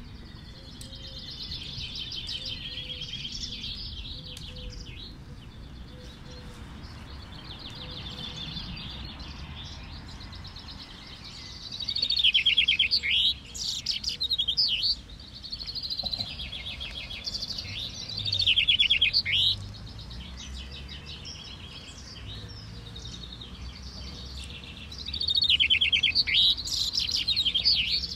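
Several caged male chaffinches singing in a finch-singing contest, their songs overlapping one after another. Each song is a rattling trill that drops in pitch and ends in a quick flourish. The loudest songs come about halfway through and again near the end, over a steady low background noise.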